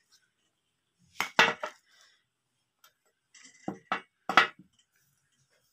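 Glass cups clinking and knocking against each other and the tabletop as they are handled and set down, in two short clusters of strikes, about a second in and again about four seconds in.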